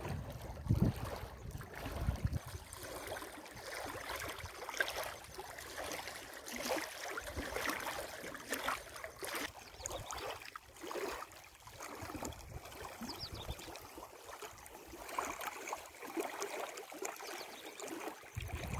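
Small waves lapping and splashing irregularly against the water's edge, with low rumbling gusts near the start and end.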